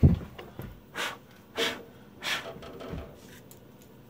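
A person blowing sawdust out of a freshly milled pocket in a wood block: about five short, forceful puffs of breath, roughly two-thirds of a second apart, the first the loudest and buffeting the microphone.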